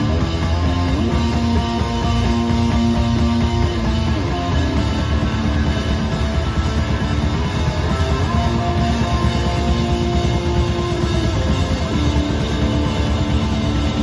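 A rock band playing live: electric guitar and bass guitar holding long sustained notes over a dense low end, loud and steady.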